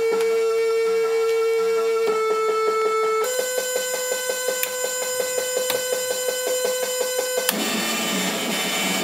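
Modified Casio PT-31 mini keyboard sounding a steady electronic drone that steps up in pitch about three seconds in and takes on a fast, even pulsing, turns noisier and harsher near the end, then cuts off abruptly.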